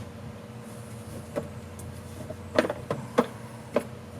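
Four or five sharp clicks and knocks of hand tools and metal parts being worked while a stuck carburetor is pried off a golf cart's two-stroke engine, over a steady low hum.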